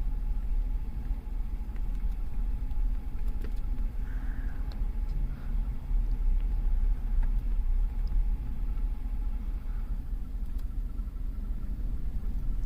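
2005 Cadillac Escalade's 6.0-litre V8 idling with a steady low rumble. The idle is a little lopey, which the mechanic puts down to a dead bank 1, sensor 1 oxygen sensor.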